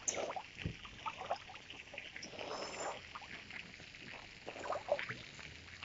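Water splashing and dribbling in small irregular bursts as a swimmer does breaststroke close to the camera.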